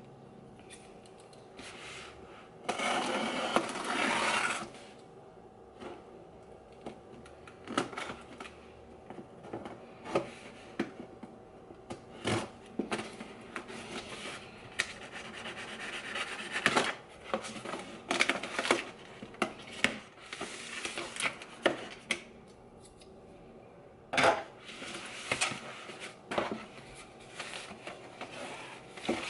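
A cardboard shipping box being opened by hand: packing tape torn and peeled off, with a loud ripping noise lasting about two seconds near the start. Then cardboard flaps and paper packaging are handled, giving scattered rustles, scrapes and clicks.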